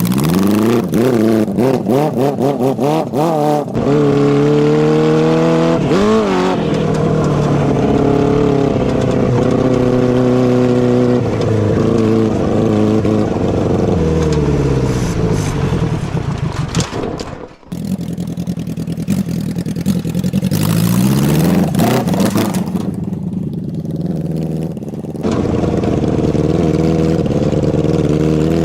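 650cc motorcycle engine in a lawnmower, revving up and falling back again and again as it is ridden, with a rapid crackle in the first few seconds and a sudden brief drop-out about two-thirds of the way through.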